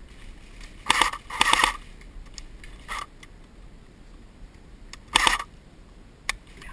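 Airsoft electric rifles (AEGs) firing short bursts: two close together about a second in, a shorter one at about three seconds and another a little after five seconds, with a single sharp click near the end.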